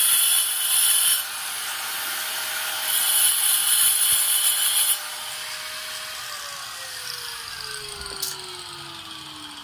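Handheld electric angle grinder run in two loud bursts against stone-look tile cladding. It is then switched off, and its whine falls steadily as the motor spins down over the last few seconds.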